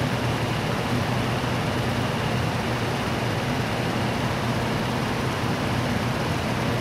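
Steady low hum and hiss of workshop background noise, with no distinct events.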